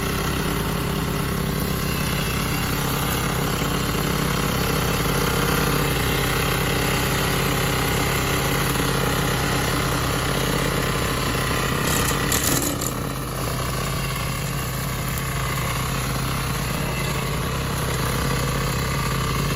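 Small engine of a multifunctional lawnmower with a snow-push blade running steadily. A brief clatter comes about twelve seconds in.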